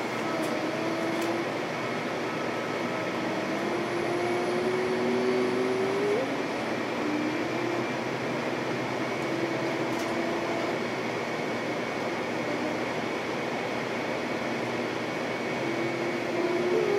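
Interior of a Denver RTD light rail car pulling away from a station and running on open track: a steady rumble of wheels on rail with a few faint wavering tones from the drive.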